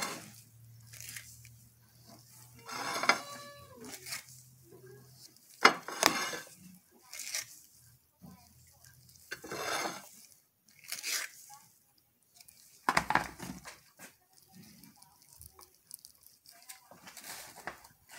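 Scattered knocks and scrapes of a knife and avocado slices being set onto a rice dome on a hard plate, the loudest knock about six seconds in. A brief wavering pitched sound comes about three seconds in.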